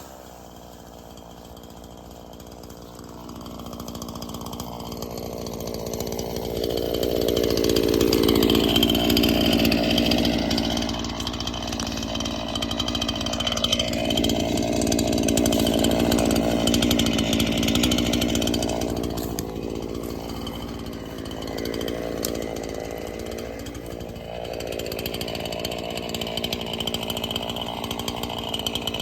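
Chainsaw cutting up downed pine trunks. It runs quieter for the first few seconds, then louder from about four seconds in, and its pitch dips briefly several times as it works through the wood.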